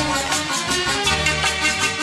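Instrumental interlude of a Hindi film-song karaoke backing track: melodic instruments over a quick, steady percussion beat, with no singing.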